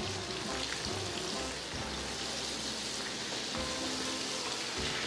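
Flour-coated crab pieces deep-frying in hot oil in a wok: a steady sizzle and bubbling.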